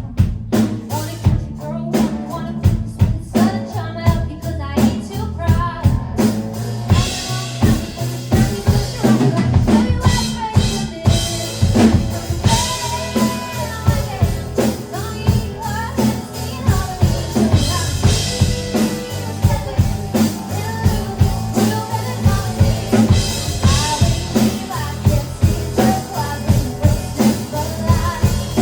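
A live band playing a song, with a drum kit keeping a steady beat over bass and guitar; cymbals come in about a quarter of the way through.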